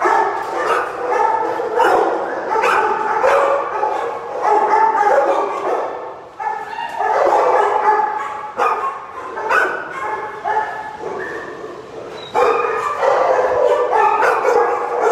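Many dogs barking and yipping at once in a hard-walled shelter kennel, a loud, continuous din of overlapping calls with brief lulls about six and twelve seconds in.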